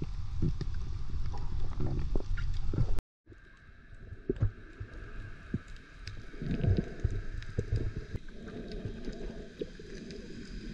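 Muffled underwater sound picked up through an underwater camera: a low rumble of water movement with gurgling and scattered clicks. The sound cuts out briefly about three seconds in and comes back quieter.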